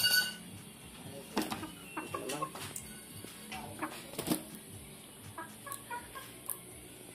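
Tape being pulled off its roll and wound around a thin steel airgun barrel to build up a centring spacer, with a few sharp clicks and crackles. Short pitched calls sound in the background, the loudest right at the start.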